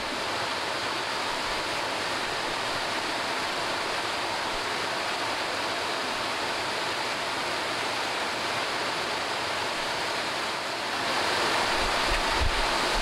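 Steady rushing of small river waterfalls, an even hiss that grows a little louder near the end.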